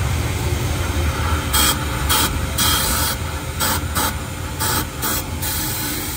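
Repeated short hissing blasts of spray, about eight in four seconds, used to clear metal debris out of a damaged race engine, over a steady low rumble.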